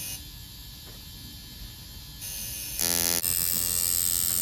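Electric tattoo machine buzzing steadily, dropping lower about a second in and running louder again from about three seconds in, where there is a short loud tone.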